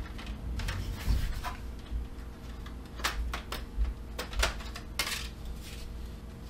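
Clicks, knocks and scraping of a thin client's case panels being pried loose and handled, with a run of sharp clicks between about three and five seconds in.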